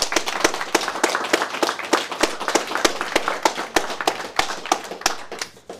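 Audience applauding: many hands clapping, thinning and dying away near the end.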